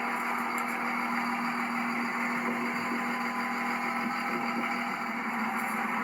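A 1998 Dodge Ram 2500's 5.9-litre Cummins inline-six turbo diesel idling steadily.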